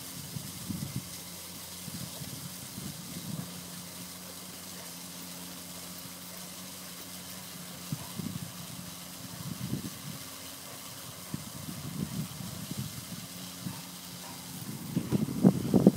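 A steady low hum with an even hiss over it, broken now and then by soft low thumps and rustles.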